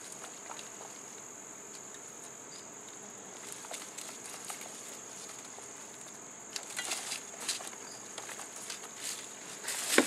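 Steady high-pitched insect trill. From about two thirds of the way in come clicks and rustles of hand pruners snipping sweet potato vines over a plastic container, with a sharper click near the end.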